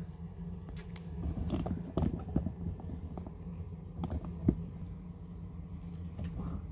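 Scattered light knocks and clatter as cooked corned beef is served: utensils and cookware handled and a wet chunk of meat set down on a plate near the end, the sharpest knock about four and a half seconds in. A low steady hum runs underneath.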